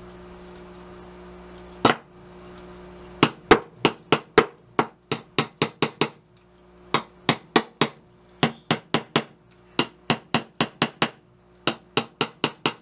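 Marton tack hammer tapping small nails: a single knock about two seconds in, then runs of quick, light, sharp blows, about three a second.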